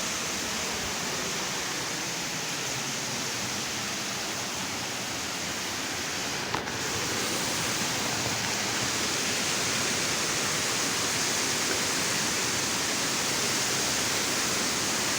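Steady rushing of running water, with one brief click about six and a half seconds in.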